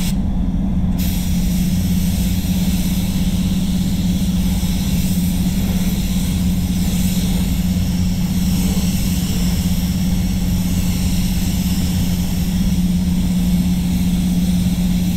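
Hiss of a gravity-feed Beyond Nova spray gun spraying paint over the steady low hum of a spray booth's air system. The hiss drops out for about the first second, then runs on.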